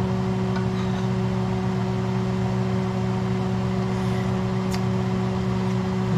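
A steady low electric hum from a running appliance, with a few faint clicks.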